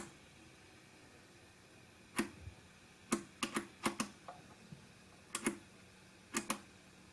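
Push buttons on the top panel of a portable PA speaker clicking as they are pressed: a series of sharp clicks, many in quick pairs, with short gaps between.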